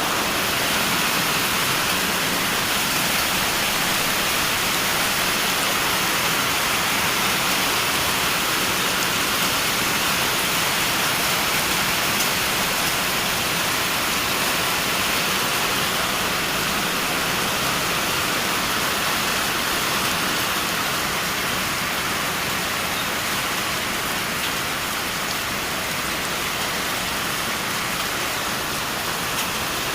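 Steady rain falling: an even hiss of many drops, brightest in the upper range, without a break or change in strength.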